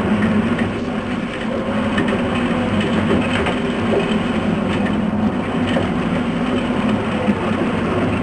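Fishing charter boat's engine running steadily, a constant low drone with some splashing and rattling noise over it.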